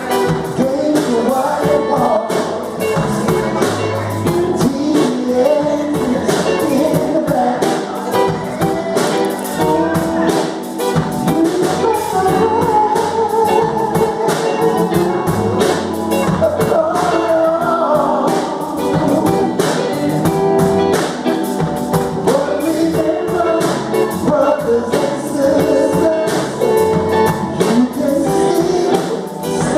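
A recorded song with singing over guitar and a steady beat.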